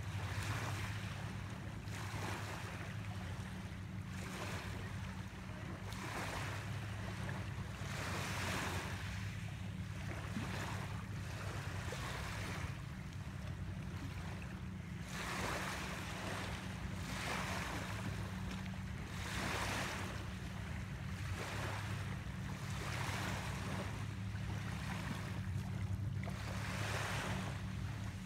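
Small lake waves lapping against the shore, a wash about every two seconds. A steady low hum runs underneath.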